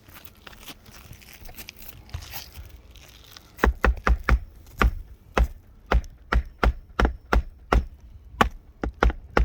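A hammer striking in quick, uneven strokes during an asphalt shingle roof repair, about fifteen sharp blows starting about three and a half seconds in, after some quiet handling noise.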